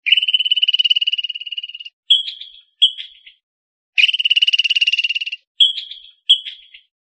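Squirrel chattering: two long, rapid rattling trills, each followed by two short chirps.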